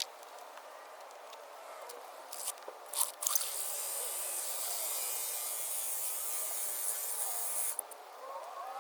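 A high hissing spray: two short spurts, then a steady hiss lasting about four and a half seconds that cuts off suddenly.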